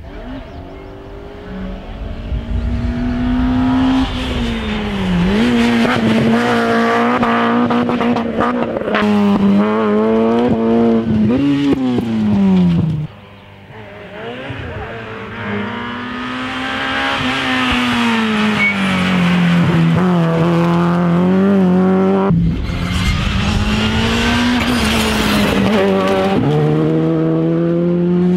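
Rally cars at full throttle passing one after another, each engine revving up and dropping back with its gear changes, with abrupt changes where one car gives way to the next.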